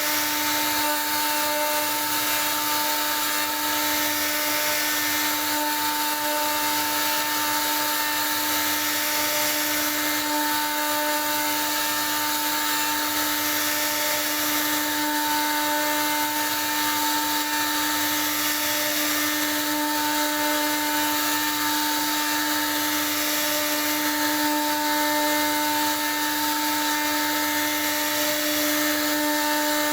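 CNC router spindle running steadily while it carves wood, a constant high-pitched whine over a cutting hiss that swells and fades every four to five seconds.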